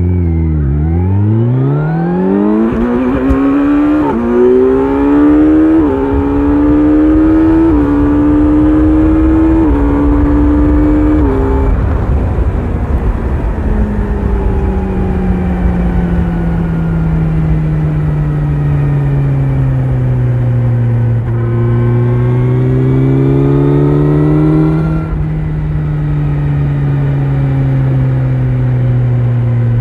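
Kawasaki Z900's inline-four through an Akrapovic exhaust, accelerating hard through about five quick upshifts, the note climbing and stepping down at each shift. It then runs in a high gear, the pitch sagging slowly, builds again about three quarters in, and drops sharply as the throttle closes near the end.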